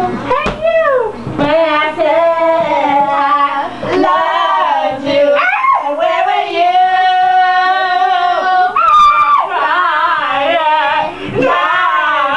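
Girls' voices making deliberately annoying sing-song noises: wavering, sliding wails, with a falling slide about half a second in and a long held note in the middle.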